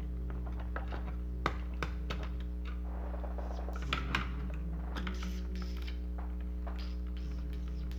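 Scattered small clicks and taps of plastic parts and a screwdriver being handled while an animated Santa toy is taken apart, over a steady electrical hum.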